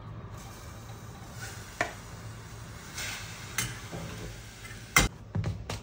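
Grated apple going into a hot stainless steel saucepan on a lit gas burner: a steady sizzle, broken by a few clinks of the spoon against the pot. The loudest clink comes about five seconds in.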